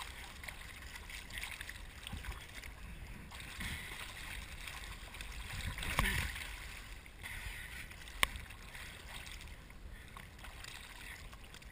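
Choppy water lapping and splashing close up around a swimmer, with a louder splash about six seconds in as an arm reaches out for the kiteboard, and a single sharp click a couple of seconds later.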